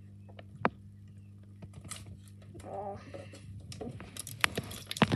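A steady low hum with a few sharp clicks and taps scattered through, and a brief murmur of a voice a little before the middle.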